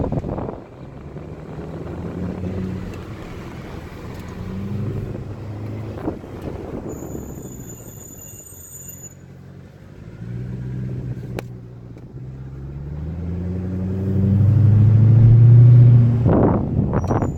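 Mercedes-Benz C63 AMG (W204) 6.2-litre V8 driving, its engine note rising and falling with the throttle and loudest as it accelerates near the end. About seven seconds in, a thin, high, steady brake squeal sounds for about two seconds.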